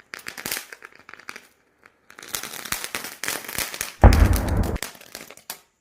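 A misfiring firecracker crackling and popping in irregular runs of sharp cracks. About four seconds in comes a louder, deeper burst lasting under a second, followed by a few last pops.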